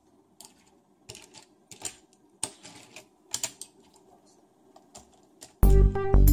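Light plastic clicks and taps as a die-cast Hot Wheels car is handled and set on a plastic track ramp. Loud music starts suddenly about five and a half seconds in.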